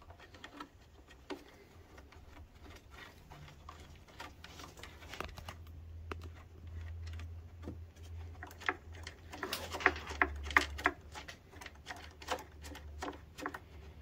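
Faint clicks and light taps of small bolts and a plastic air-cleaner base being handled and fitted by hand, busiest about ten seconds in, over a low steady hum.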